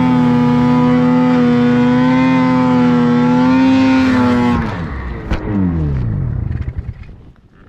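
Snowmobile engine held at high revs while climbing a powder slope. About four and a half seconds in, the revs fall away sharply and the engine winds down as the sled tips over. A knock and rough snow noise follow, and it goes fairly quiet near the end.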